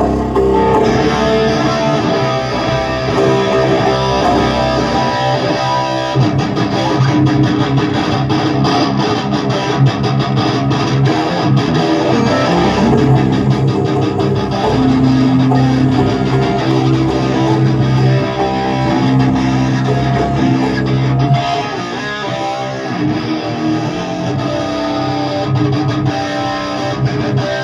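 Amplified electric guitar played through effects during a band's sound check, holding and changing sustained notes and chords.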